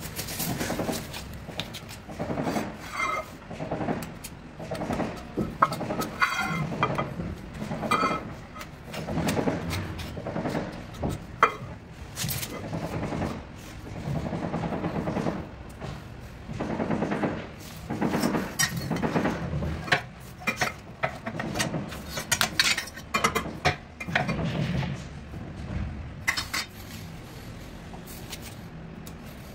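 Metal spatula scraping and clinking on a granite offcut used as a mixing board, scooping white paste and spreading it along the cabinet's granite plinth in short, irregular strokes.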